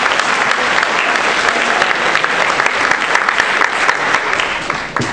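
Applause from a room of people, many hand claps blending into a steady patter that dies down near the end.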